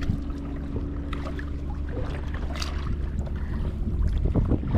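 Kayak paddle strokes splashing in the water, with wind rumbling on the microphone.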